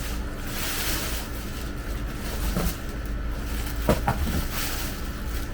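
Rustling and scraping of a cardboard shipping box and its packing being opened by hand, with a sharp knock about four seconds in.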